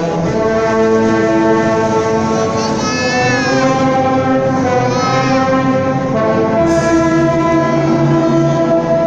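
Symphony orchestra playing sustained chords, strings and brass together. A wavering higher melodic line rises over them twice.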